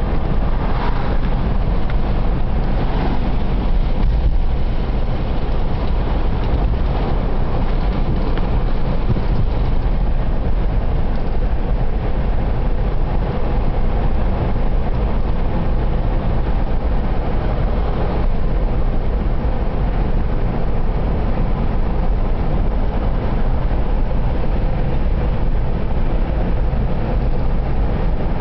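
A car driving at road speed, heard from inside the cabin: a steady low rumble of tyre, road and engine noise that holds even throughout.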